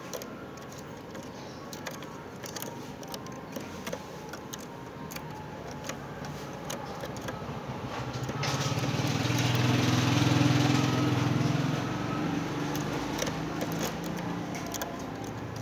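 A motor vehicle engine passes, swelling from about halfway in to a peak and then fading over the next few seconds, with scattered faint clicks throughout.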